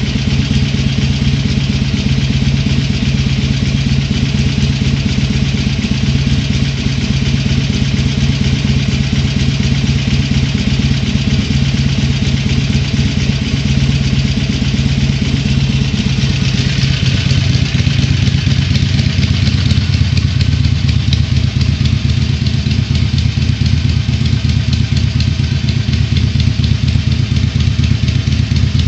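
Harley-Davidson Iron 883's air-cooled 883 cc V-twin on its stock exhaust, idling steadily at low revs with a heavy sound, run in to 1400 km before its first service.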